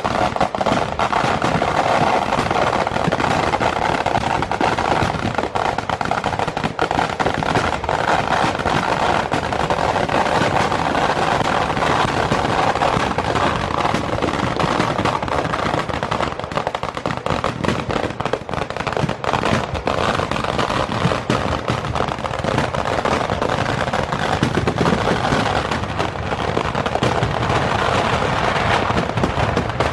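Temple fireworks (vedikettu) going off in a dense, unbroken barrage of rapid bangs and crackles that keeps an even loudness throughout.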